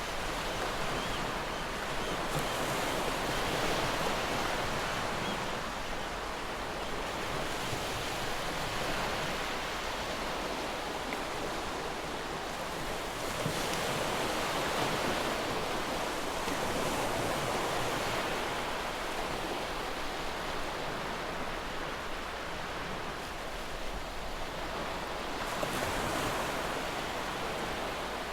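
A steady rushing noise that swells and eases every few seconds, with no tones or clicks in it.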